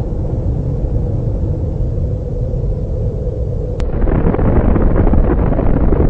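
Deep, continuous rumble of a huge explosion. A little before four seconds in it grows louder and rougher, reaching higher in pitch.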